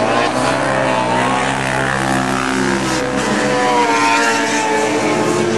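Engines of several racing quads (ATVs) running hard around a dirt oval, their pitches rising and falling separately as the riders accelerate and back off.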